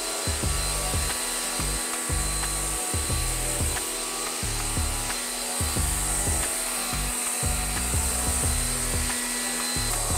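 Pressure washer running, its high-pressure jet spraying water onto a motorcycle with a steady, strong hiss.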